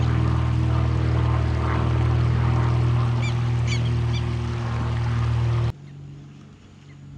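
A loud, steady low hum with many overtones that cuts off suddenly near the end, with a few short high chirps in the middle.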